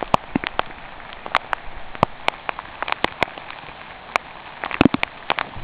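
Rain pattering: irregular sharp drop ticks, several a second, over a steady hiss, with a denser cluster of louder ticks near the end.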